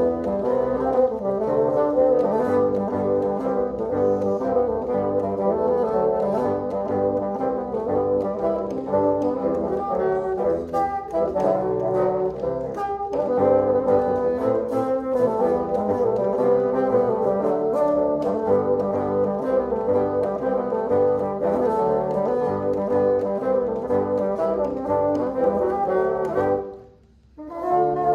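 Bassoon quartet playing a jig, four bassoons in close harmony. Near the end the music breaks off for a moment, then the playing resumes.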